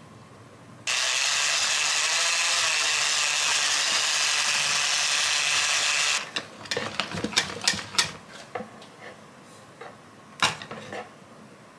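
Electric hand mixer whipping cream in a plastic measuring jug: a loud, steady whir that starts about a second in and cuts off about five seconds later. Then a series of sharp knocks and clicks, the whisk and jug handled and tapped.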